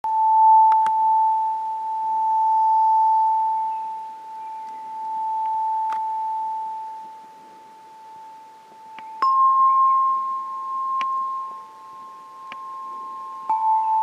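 Clear tube chimes struck with a soft mallet. Each note rings on as a long, pure, steady tone. One note is struck again about a second in and again near six seconds, a second, slightly higher note joins about nine seconds in, and a few light taps follow before the first note is struck again near the end.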